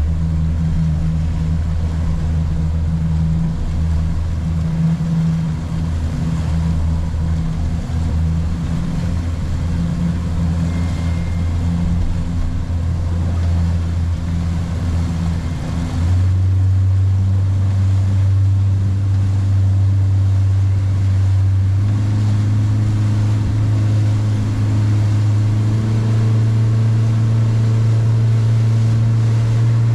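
Boat engine running under way, driving the boat up-tide so the anchor-retrieval buoy pulls the anchor up. About halfway through it steps up in pitch and gets louder, and it rises slightly again a few seconds later.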